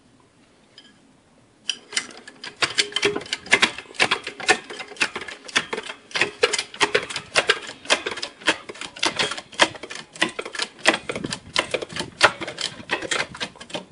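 Rapid, irregular mechanical clicking, several sharp clicks a second, starting about two seconds in.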